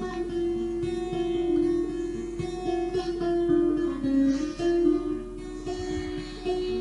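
Acoustic guitar played slowly, with plucked notes ringing out over a note held throughout.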